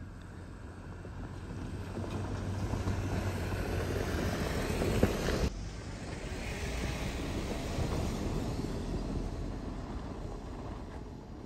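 Jeep Wrangler JK driving on a gravel dirt road, its engine and tyres getting louder as it comes up and passes close about five seconds in. The sound cuts off abruptly, then the Jeep is heard again approaching and passing, fading as it drives away.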